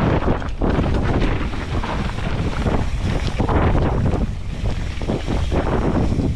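Mountain bike riding fast down a dirt singletrack: heavy wind buffeting the microphone over the low rumble of tyres on the trail, with frequent short knocks and rattles from the bumps.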